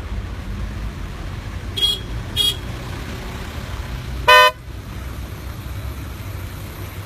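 Car horns in traffic: two short, fainter toots about two seconds in, then one loud half-second honk a little past four seconds, over the low rumble of idling traffic.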